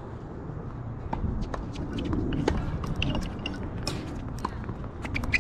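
Tennis rally on a hard court: the ball struck by rackets and bouncing, heard as sharp pops every half second or so, over a steady low rumble.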